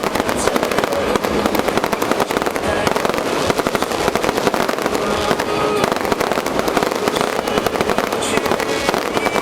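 Fireworks crackling and popping in a dense, continuous barrage of rapid bangs, steady in loudness with no pause.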